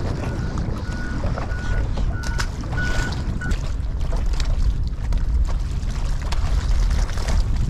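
Steady wind buffeting the microphone, a dense low rumble. In the first half, a faint run of short, evenly spaced beeps.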